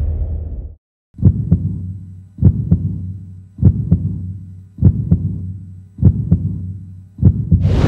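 A low rumble fades out in the first second, then a heartbeat sound effect: six low double thumps, about one every 1.2 seconds.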